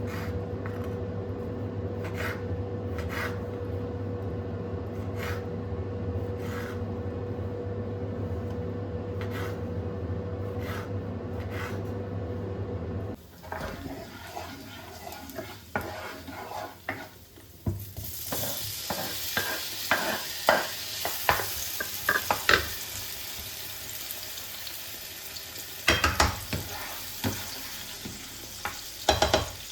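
A steady machine hum with a few light clicks cuts off about a third of the way in. Utensil clicks and knocks follow, then food sizzling in a frying pan from a little past the middle while it is stirred, with sharp clicks of a spoon against the pan.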